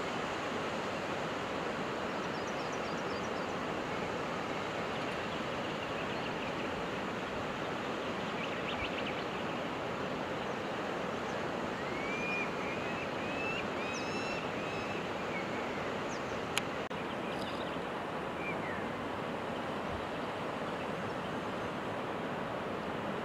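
Steady outdoor rushing noise, with a short run of five or six small bird chirps about halfway through and a single sharp click a few seconds later.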